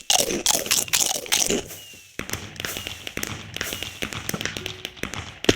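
Keys of a Logitech G213 Prodigy membrane (Mech-Dome) keyboard clattering under rapid typing, with a heavier knock at the start and another near the end.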